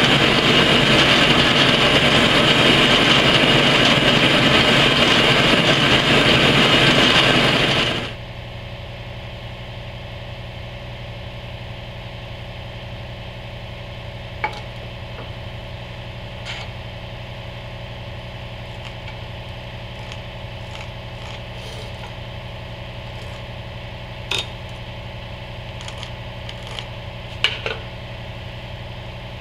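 Horizontal metal-cutting bandsaw running steadily as its blade cuts through steel flat bar, loud and even with a hissing edge; it stops abruptly about eight seconds in. Then a quieter steady hum, with a few light metallic clicks as a combination square and scribe are set against a steel plate.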